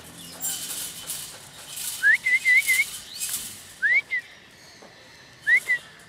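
Short, clean rising whistles, three times: the first runs into a quick string of four repeated notes, the next two are single with a short tail. Between them comes rustling and light rattling of a plastic bird carrier against cage wire.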